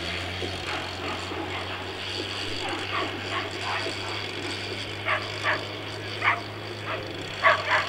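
Dogs barking and yipping: scattered barks at first, then a quicker, louder run of barks near the end, over a steady low hum.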